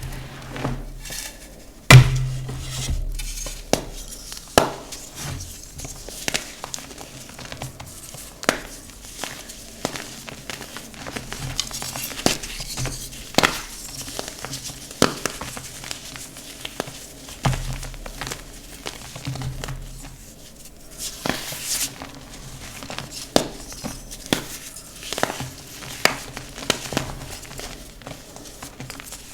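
Dyed gym chalk slabs being crushed and crumbled by hand: irregular sharp snaps and crunches, the loudest about two seconds in.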